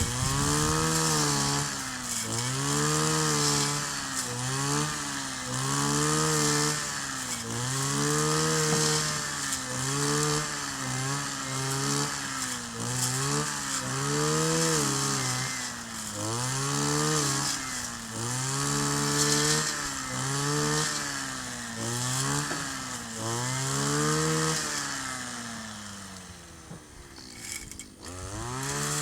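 Kioritz 260 two-stroke brush cutter running at high revs, its engine speed swelling and sagging over and over about every two seconds as it works. Near the end it drops back and quietens.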